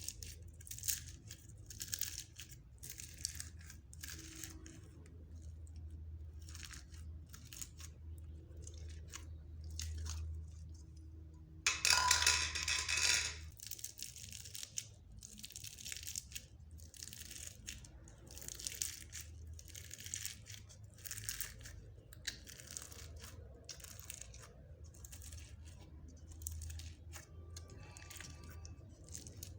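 Slime being squished, stretched and pressed by hand, giving irregular short wet crackles and pops, with a louder, denser crackling stretch about twelve seconds in.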